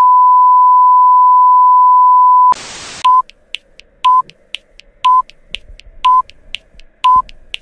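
A loud, steady electronic tone near 1 kHz that cuts off about two and a half seconds in with a short burst of static hiss. Then short beeps at the same pitch come once a second, with faint ticks between them, like a countdown.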